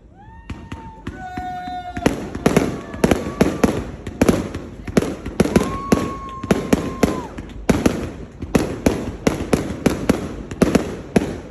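Fan-pattern fireworks cake firing. Whistling tones sound in about the first two seconds, then a rapid run of sharp bangs follows, two or three a second, with one long steady whistle partway through.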